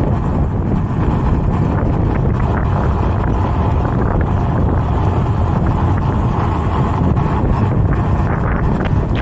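Wind buffeting the microphone of a rider cruising on an electric unicycle: a steady, loud low rumble with no motor tone.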